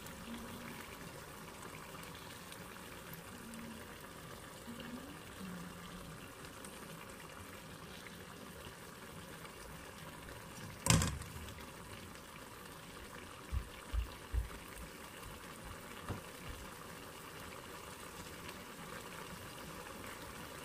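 Pork kaldereta stew simmering in a nonstick pan, a steady low bubbling. About halfway through comes one sharp click, followed a few seconds later by a few soft low thumps.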